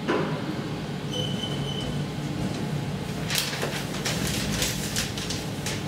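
New SMW traction elevator: a knock as the glass car door shuts, a short high beep about a second in, then a steady low hum with repeated hissing rushes as the car runs.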